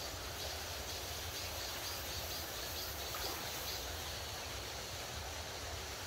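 Shallow mountain stream running over rocks, a steady rushing hiss with a low rumble underneath.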